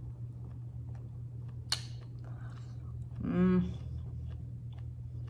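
A woman chewing a chewy piece of beef-and-buffalo jerky, with faint clicking mouth sounds. There is a short breathy noise about a second and a half in and a brief hummed "mm" past the middle, over a steady low hum.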